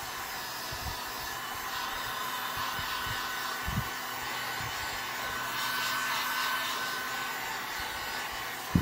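Handheld heat gun blowing steadily over wet epoxy and acrylic paint on a tumbler, heating it so the colours blend. A low thump about four seconds in and a sharper one near the end.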